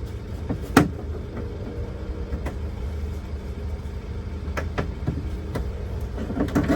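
Plastic door-panel trim clips being pressed and knocked into place: a few sharp clicks and knocks, the loudest about a second in and a cluster near the end, over a steady low hum.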